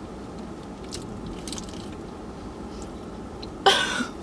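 A person chewing food, with faint mouth clicks and crunches over a steady low background hum. Near the end there is a short, loud burst of voice.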